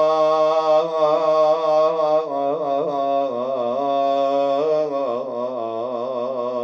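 A man's solo voice chanting a Shia lament (nai), drawing the last syllable of a line out into long, ornamented held notes that waver up and down, the melody stepping down twice.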